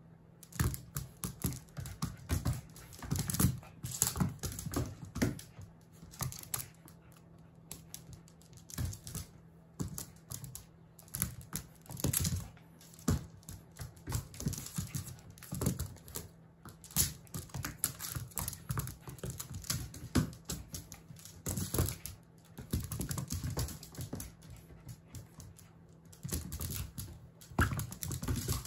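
Jack Russell Terrier puppy's claws and paws clicking and scrabbling on a hardwood floor in quick, irregular flurries as it dashes and pounces after a cat-teaser toy.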